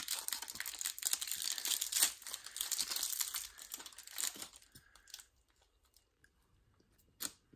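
Plastic snack wrapper crinkling and tearing as it is opened, a dense crackle that stops a little over halfway through, with one more short crinkle near the end.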